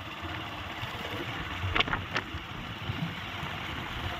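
Steady rumble of a vehicle on the move with wind buffeting the microphone, and a couple of faint clicks around two seconds in.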